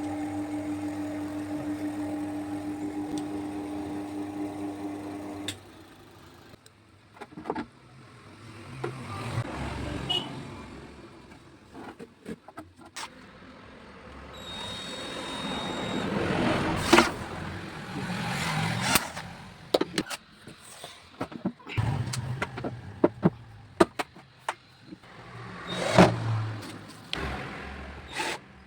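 A motor hums steadily, then cuts off suddenly about five seconds in; irregular knocks, clicks and clatter follow.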